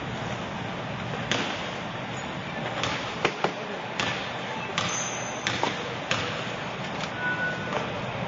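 A basketball bouncing on a hardwood gym floor: about ten sharp, irregularly spaced bangs, the loudest a quick pair about three seconds in, over the steady murmur of the gym.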